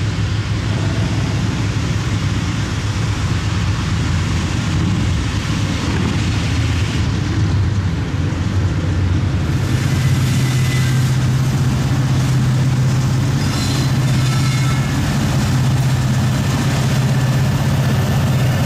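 Diesel-electric freight locomotives, an EMD SD70ACe leading a GE AC44C6M, working under power as a loaded train pulls out and approaches. A steady low engine drone that steps up slightly in pitch about halfway through.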